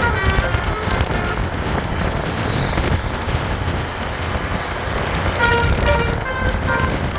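Bus's basuri telolet multi-tone horn playing a short stepping melody, for about a second at the start and again for about a second and a half near the end, over a low engine and road rumble.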